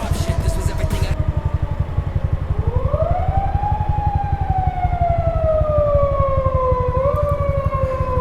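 Police patrol car siren wailing close behind, pulling over a moped: a slow rise about two and a half seconds in, then a long falling tone with a short upward kick near the end, over a steady low engine and road rumble.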